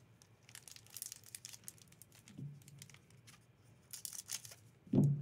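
Foil booster pack wrapper crinkling as it is handled and cut open with scissors, with a dense cluster of sharp crackles about four seconds in.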